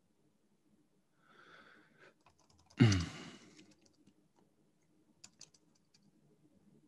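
Light keystrokes on a computer keyboard, a few scattered clicks, while a document is being edited. About three seconds in comes one short, loud burst of breath and voice from the person typing, with a softer breathy sound just before it.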